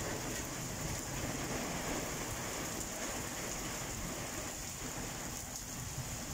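Heavy rain pouring down steadily, splashing on wet paving and leaves.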